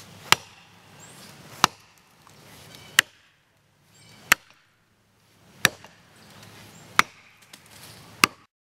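Axe chopping into the trunk of a gum tree being felled: seven sharp strikes at an even pace, about one every second and a third.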